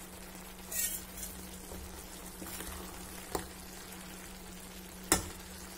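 Steel spoon stirring soft cooked pumpkin in a stainless-steel pan, with a few sharp clinks of the spoon against the pan, the loudest about five seconds in. A steady low hum runs underneath.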